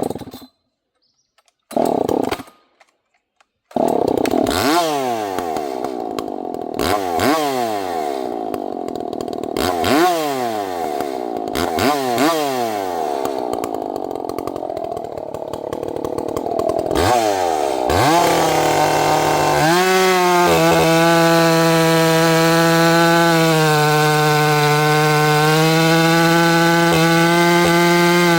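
Two-stroke gas chainsaw that catches after two short bursts, then is revved repeatedly, each blip a rising whine about every two seconds. From about eighteen seconds in it is held at a steady high rev. This is a cold saw being warmed up, one that doesn't like to idle for long.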